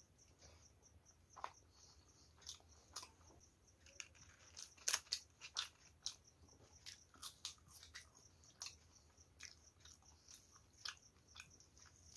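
Close-miked, quiet chewing and mouth sounds of a person eating rice and curry by hand: irregular wet smacks and sharp clicks, busiest and loudest about five seconds in.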